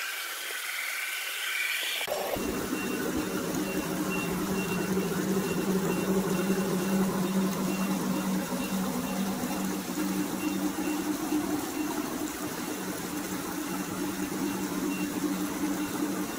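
G-scale model train running on a garden railway: a steady low motor hum over an even outdoor hiss, starting about two seconds in, with a faint high tone coming and going.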